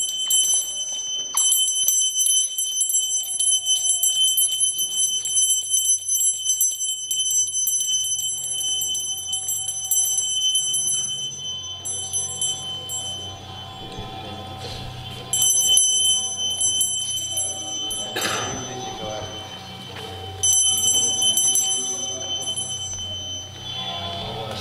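Small metal bells jingling as they are shaken, almost without pause for the first ten seconds and then in shorter spells, over a low steady hum.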